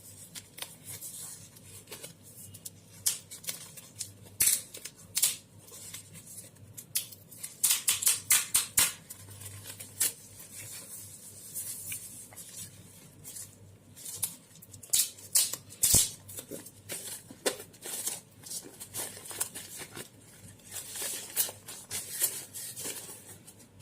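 Packaging of a Wacom pen tablet being handled as the tablet is taken out of its box and unwrapped: irregular rustling, scraping and clicking, with louder clusters of crinkles and scrapes every few seconds.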